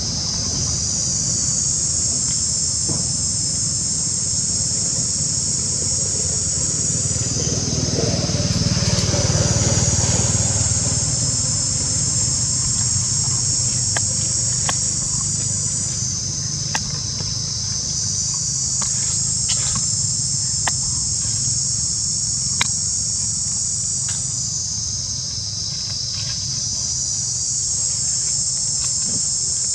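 A steady, high-pitched insect chorus buzzing in several close bands, dipping away briefly three times, over a low rumble. A few small sharp clicks come in the second half.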